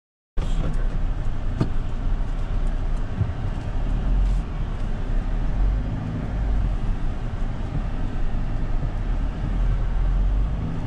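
Cabin sound of a 2020 Mahindra Thar diesel automatic crawling along a muddy, rutted track in four-wheel-drive low range: a steady low engine drone with tyre and suspension noise, cutting in suddenly just after the start, with a single knock about a second and a half in.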